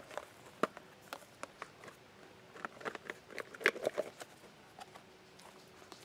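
Hands handling a clear plastic hinged parts case and the box inside it: a scatter of short plastic clicks and taps, busiest around the middle.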